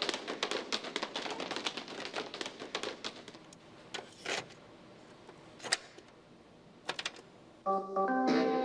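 Several paper plates tapped and clapped together in a rapid, uneven clatter that dies away after about three seconds. A few single plastic clicks follow as a cassette is pushed into a boombox's tape deck, and near the end organ-like music starts up.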